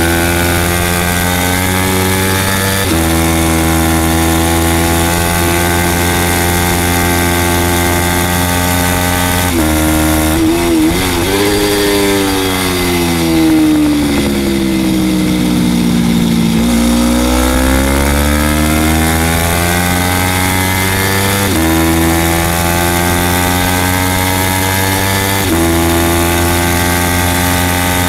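Onboard sound of a 300-class superstock race motorcycle's engine revving high, around 10,000 to 13,000 rpm, with a gear change about three seconds in. About ten seconds in the revs break up and fall as the rider brakes and downshifts for a corner, the pitch sinking through the turn; it then climbs hard again with two upshifts near the end, over a steady wind rush.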